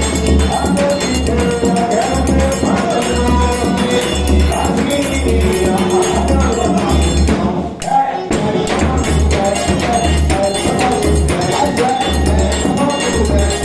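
Forró dance music with singing, jingling percussion and a steady bass beat about twice a second; it briefly drops out about eight seconds in.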